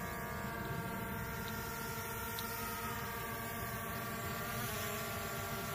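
Steady high whine of a small remote-controlled craft's electric motors, dipping briefly in pitch a little over four and a half seconds in.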